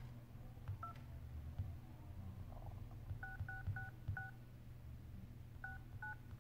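iPhone 8 Plus keypad dialing tones: short two-tone beeps as digits are tapped in. There is one about a second in, a quick run of four a little past the middle, and two more near the end.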